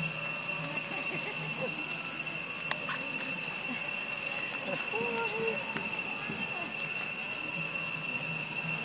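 Steady, high-pitched drone of insects, a continuous two-pitched whine that holds an even level throughout.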